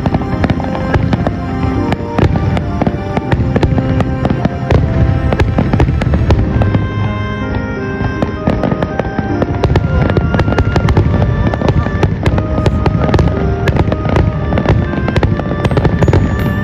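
Dense barrage of aerial firework shells bursting, many bangs a second, with music playing under it.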